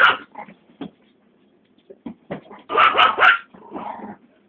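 Dog barking repeatedly in short sharp bursts, with a pause after about a second and the loudest run of barks around three seconds in.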